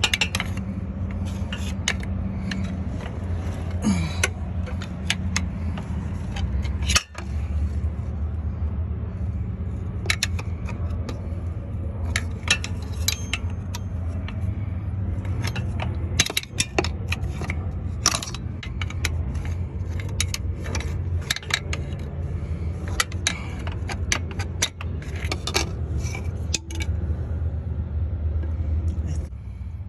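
Irregular metal clinks, knocks and scrapes of a pry bar levering at a seized CV axle where it sits in the transmission, over a steady low hum. The axle is stuck and does not come free.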